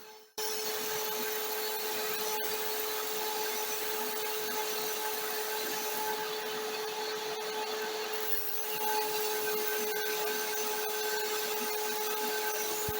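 Electric drill motor running at a steady speed, driving a grinding wheel, with a continuous hissing grind over the motor's hum. It starts abruptly just after the beginning and gets slightly louder about nine seconds in.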